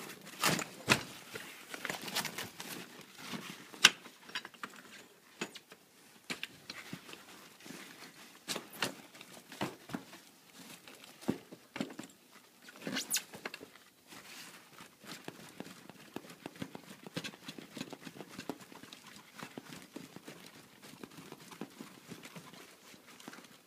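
Irregular clicks and knocks of a Folbot Citibot folding kayak's metal frame tubes and cross-ribs being handled and fitted together by hand, with rustling of the fabric hull skin. A sharper knock about four seconds in and another around thirteen seconds stand out.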